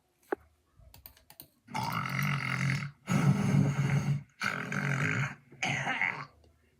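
A person snoring loudly: four long, rough, rattling snores in quick succession, after a few faint clicks.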